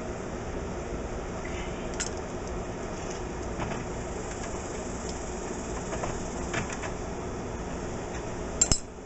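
Scattered light metallic clinks of tools and parts being handled during a car door window regulator installation, with a louder double clink near the end, over a steady fan-like hum.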